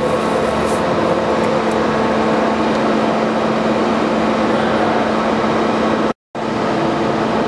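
Steady machinery running with an even hum, cutting out to silence for a moment about six seconds in.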